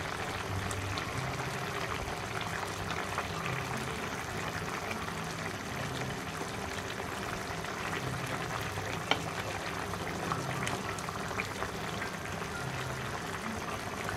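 Bottle gourd and fish curry simmering and bubbling in a pan while a wooden spatula works through it, breaking up the fish pieces, with a few soft taps of the spatula against the pan.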